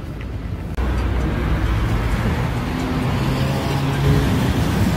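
Street traffic noise: a steady rumble of road noise with a motor vehicle's engine hum, coming in abruptly about a second in and getting louder toward the end.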